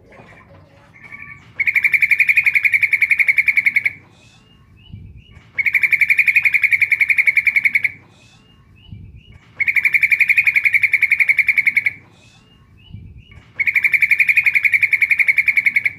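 Female yellow-vented bulbul (trucukan) calling: four loud, fast, rattling trills, each about two seconds long and repeated about every four seconds, with a few short, faint notes between them. This is the female's call to a male, played as a lure to set other bulbuls calling in answer.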